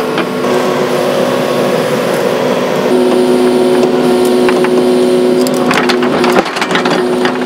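Hydraulic excavator's diesel engine running steadily under load, its pitch stepping up about three seconds in and dipping briefly near the end, with a few knocks late on.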